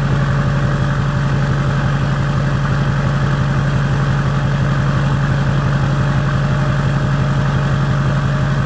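Freshly rebuilt LBZ Duramax 6.6-litre V8 turbo-diesel idling steadily, heard at the tip of its 4-inch straight-pipe exhaust.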